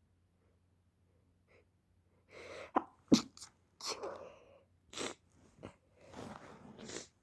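A person with a head cold sneezing several times in quick succession, with sharp breaths in between. The run starts about two seconds in, and the loudest sneeze comes early in it.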